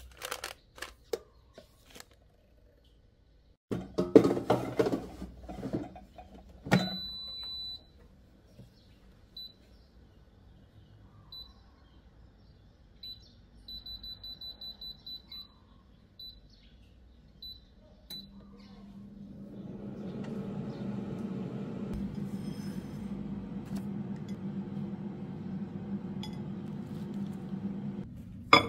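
Handling knocks and clatter, then a kitchen appliance's electronic panel beeps as buttons are pressed, including one longer beep and a quick run of beeps. About two-thirds through, the appliance starts running with a steady electric hum.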